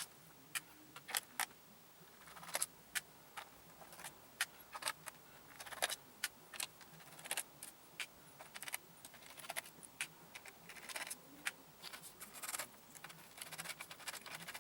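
Irregular small metallic clicks and clinks as a Phillips screwdriver backs screws out of a laptop's plastic bottom case and the small screws are handled.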